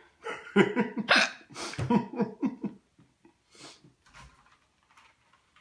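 A girl hiccuping after oral surgery, her hiccups voiced and coming in a quick run over the first three seconds or so, then a few fainter ones.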